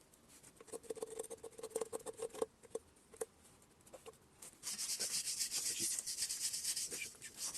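Hand tools working on the metal parts of a KamAZ single-cylinder air compressor: a quick run of light metallic clinks with a short ring, then from about halfway a loud, fast, steady scraping of metal being rubbed.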